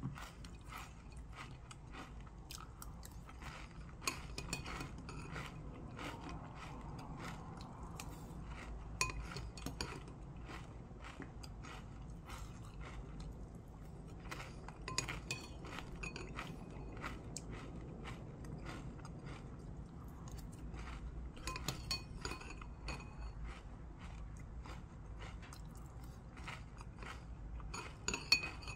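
Close-up chewing and crunching of chocolate cereal in milk. Now and then a metal spoon clinks against the ceramic bowl with a short ring.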